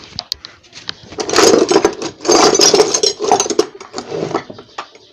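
Rapid metallic clattering and tapping in several short bursts as a bearing is worked into a pedestal fan motor's end plate.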